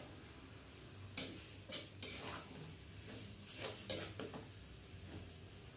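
Metal spatula scraping and knocking against a metal wok as a stir-fry of shredded kecombrang flower and fish is tossed, in irregular strokes about every half second. A faint sizzle runs underneath.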